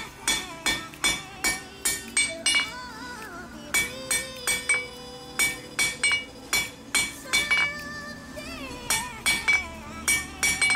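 Hammer blows on a mild-steel square bar at the anvil, about two to three strikes a second with a couple of short pauses, each strike ringing. Electronic music plays underneath.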